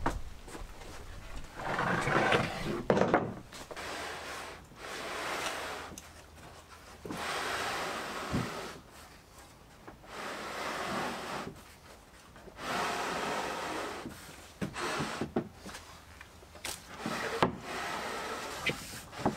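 Curved laminated wooden skirting board sliding and rubbing across a plywood jig table in several scraping strokes, with a few sharp wood-on-wood knocks as it is set in place.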